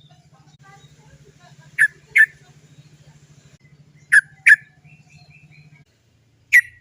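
Yellow-vented bulbul (trucukan) giving short, sharp 'cok' calls in quick pairs, two pairs a couple of seconds apart, with a third pair beginning at the very end.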